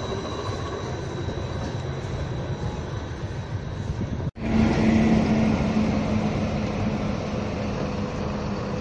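Edinburgh tram (CAF Urbos) running past and away along the street, with a faint high motor whine that fades. About four seconds in there is a sudden cut to louder street traffic noise with a steady low hum.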